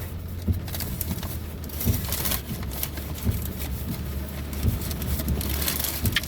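Car cabin noise: a steady low engine and road rumble, with scattered light clicks and taps over it.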